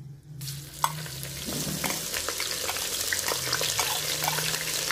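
Ginger-garlic paste sizzling as it is spooned into hot oil in a clay karahi: the sizzle starts about half a second in and grows louder, with light clicks of the steel spoon against the bowl.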